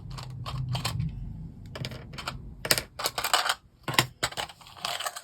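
Small plastic LEGO pieces clicking and clattering as they are handled and picked through, in irregular sharp clicks with a quick flurry about halfway through.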